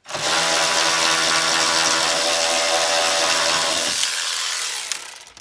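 Powered ratchet running at a steady speed, spinning a grille nut off its plastic stud. It runs for about four seconds, then its lower tone drops away and it trails off.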